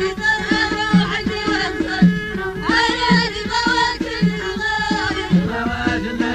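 Amazigh (Berber) folk song from Morocco's Middle Atlas: a singing voice over a steady hand-drum beat of about two strokes a second.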